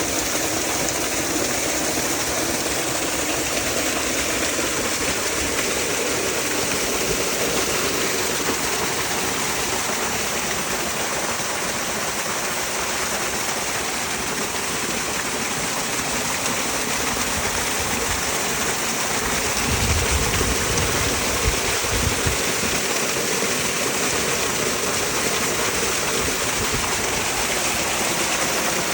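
A small spring-fed waterfall rushing steadily. A brief low rumble comes in for about two seconds about two-thirds of the way through.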